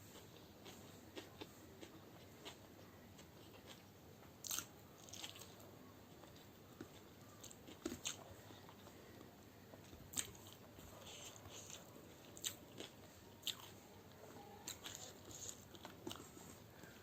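A person chewing and biting food close to the microphone: irregular soft crunches and wet mouth clicks, some louder than others, with no steady rhythm.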